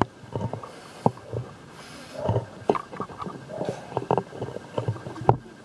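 Apples being bitten and chewed: a string of sharp, crisp crunches and wet mouth noises at irregular intervals.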